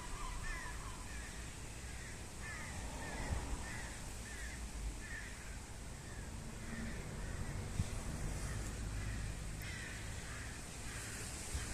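A bird calling in a long series of short, repeated notes, roughly one or two a second, with a brief pause around the middle, over a steady low outdoor rumble.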